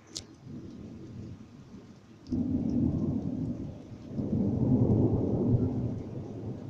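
Thunder: a brief sharp crack at the start, then a low rolling rumble that jumps up about two seconds in and swells louder around five seconds before fading, over a steady faint hiss.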